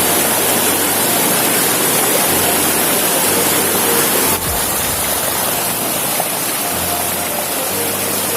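Fast-flowing river rushing over rocks: a loud, steady wash of water noise, with a brief dip in level about halfway through.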